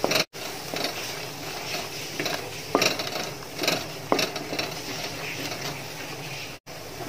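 Wooden spatula stirring and scraping a thick onion-and-spice masala in a metal pot, with several irregular knocks and scrapes against the pot over a low, steady sizzle.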